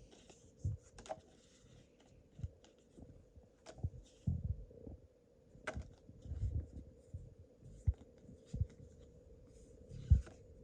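Handling noise of trading cards being flipped through by hand: irregular soft papery rustles and clicks. Low bumps from the hand-held camera come in between, the strongest near the end.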